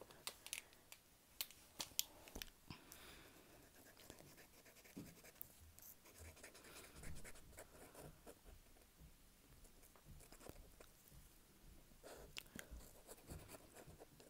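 Near silence, with faint scattered clicks and light scratching, a few sharper ticks in the first couple of seconds and again near the end.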